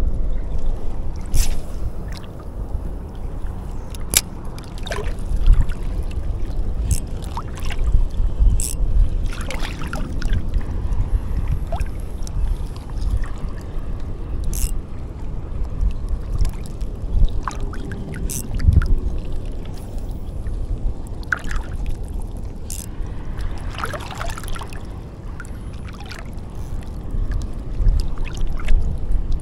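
Small waves lapping and sloshing at a shallow reef edge, over a fluctuating low rumble, with scattered sharp clicks and taps.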